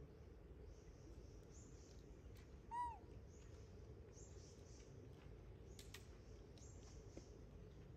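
A monkey's single short coo call, arched in pitch (rising then falling), about three seconds in, over near-silent ambience with faint leaf rustles and a few light clicks.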